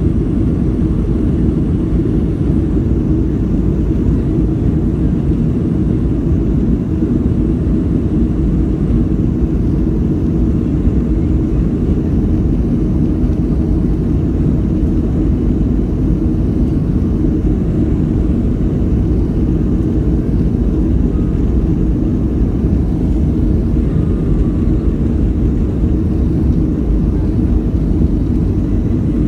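Cabin noise of a Boeing 737-300 taxiing: a steady low drone from its CFM56 turbofan engines at idle, unchanging in level.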